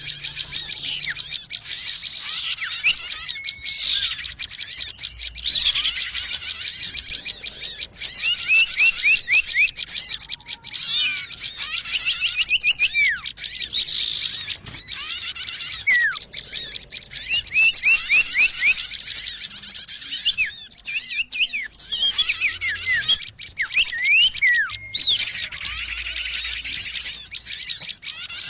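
Dense chorus of many small songbirds chirping and twittering at once, a busy bird-lure (pikat) recording. It has a few brief sudden breaks.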